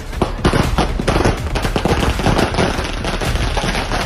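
A string of firecrackers on the ground going off in a rapid, uneven run of sharp bangs, like a burst of machine-gun fire.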